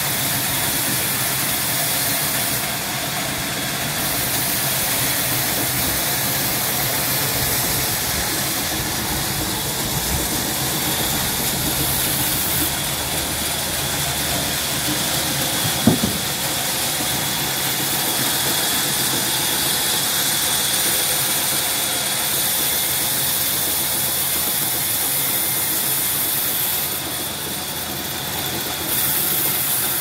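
A sawmill band saw running and cutting through a mango log: a steady mechanical whir with a hissing edge from the blade in the wood. There is a single short knock about halfway through.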